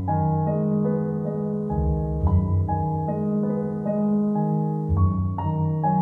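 Piano background music: held chords over a low bass line, the notes changing every half second or so.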